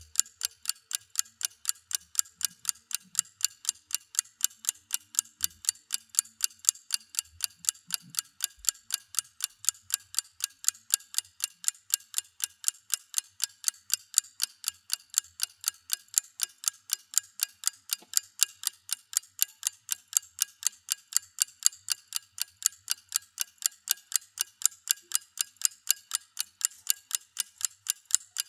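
Clock ticking: a steady, even run of sharp ticks that keeps the same pace throughout.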